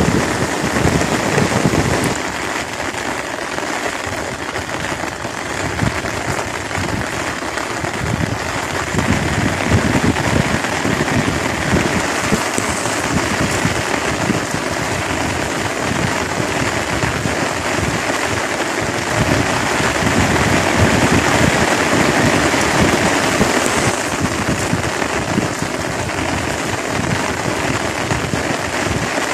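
Steady rain falling on a pond and the wet grass of its bank.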